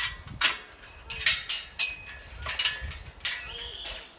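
Steel tube round pen panels being linked: a series of sharp metallic clanks and chain rattles, about eight in all, as the connecting chain and pin are worked at the panel joint.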